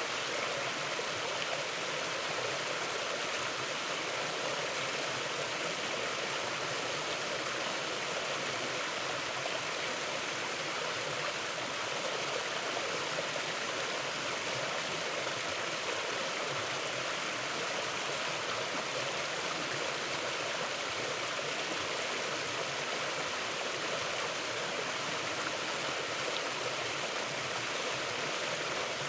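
A shallow mountain river flowing over rocks, a steady rushing and babbling of water that does not change.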